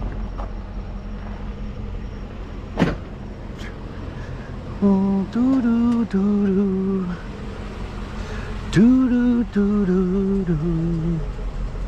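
A pickup truck's engine idles as a steady low hum throughout. A man hums the same short stepping phrase twice over it, about five and nine seconds in. There is a single sharp knock near three seconds.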